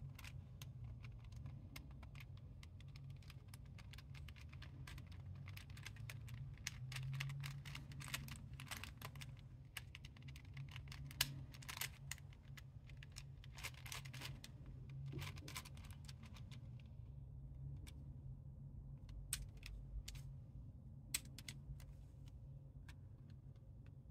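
Plastic pieces of an intersecting-circles twisty puzzle clicking and rattling as its circles are turned by hand. The clicking is dense for most of the stretch, then thins to a few separate clicks in the last several seconds.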